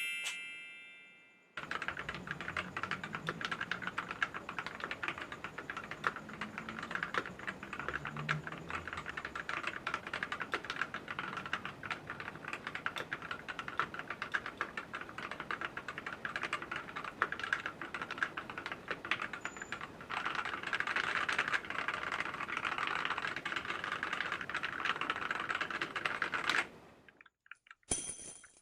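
Fast continuous typing on a Monstargear Ninja 71 Arc XD custom mechanical keyboard with lubed and filmed Gateron Red linear switches, a dense run of keystroke clacks that starts a second or two in and stops shortly before the end.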